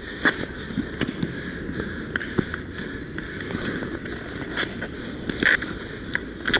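Roller hockey in play: inline skate wheels rolling and scraping on the rink floor, with scattered sharp clacks of sticks and puck.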